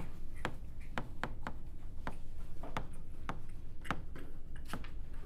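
Stylus tapping and scraping on a tablet touchscreen as words are handwritten, heard as irregular light clicks, a few per second, over a low steady hum.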